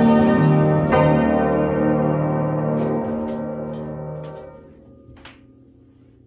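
Christman upright player piano playing a roll's final chord, struck about a second in and left ringing as it fades away over about four seconds. A few light clicks come as it dies out.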